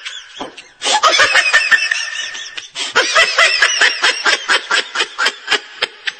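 High-pitched laughter in quick, rhythmic pulses, coming in two long bouts after a brief pause near the start.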